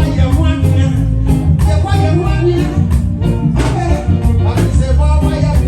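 Loud reggae music with a steady beat and heavy bass, and a singing voice over it.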